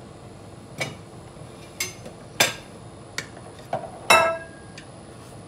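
A metal spoon knocking and clinking against a cooking pot while the rice, water and broth are stirred and tasted, about six sharp strikes. The loudest comes near the end and rings briefly.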